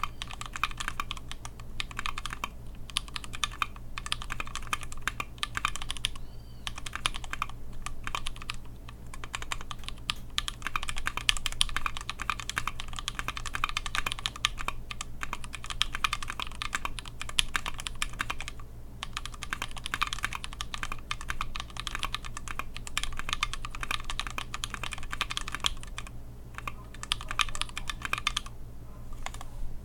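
Continuous fast typing on a Tofu 60% mechanical keyboard with Holy Chickies tactile switches: rapid keystroke clacks with a few brief pauses, over a steady low electrical hum.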